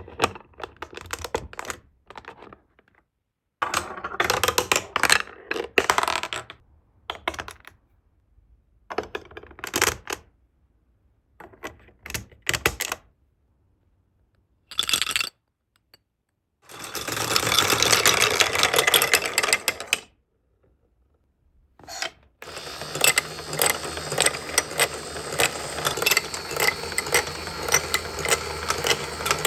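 Glass marbles rolling and clattering along a plastic building-block marble track, with clicks as they hit the block edges. It comes in short bursts cut off by sudden silences, then runs steadily with rapid clicking through the last seven seconds or so.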